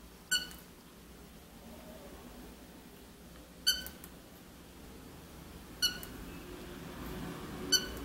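Cockatiel giving four short, sharp chirps, each a single clear note, spaced about two seconds apart.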